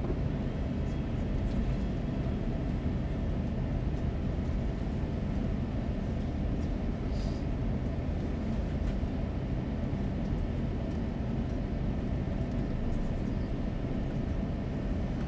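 Steady low rumble inside the cabin of an Airbus A350 taxiing, with a faint steady whine above it and a small click about seven seconds in.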